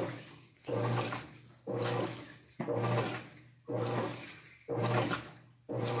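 GE belt-drive top-load washing machine agitating: the agitator is driven back and forth with a new stroke about once a second, six in all. Each stroke starts sharply with a low hum and a swish of water, then fades before the next.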